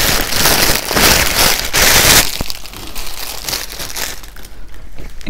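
Clear plastic packaging bag crinkling as a cap is pulled out of it, loud and dense for about two seconds, then dropping to fainter, scattered rustles.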